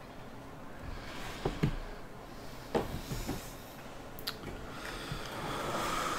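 Faint handling noises: a few soft knocks and a sharp click as a hand moves and picks at cardboard trading-card boxes on a table.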